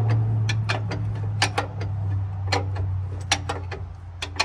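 Ratchet wrench clicking in short pairs of clicks, about once a second, as a transmission bell housing bolt is worked loose, over a steady low hum.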